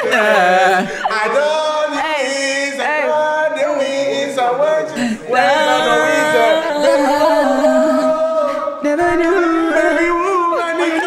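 A small group of friends singing together, long held notes with a wavering pitch.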